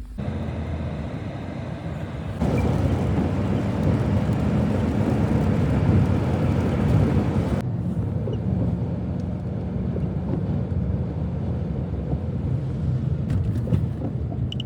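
Road and engine noise of a moving car, a steady rumble. It changes abruptly about two and a half and seven and a half seconds in, as the driving shots are cut together.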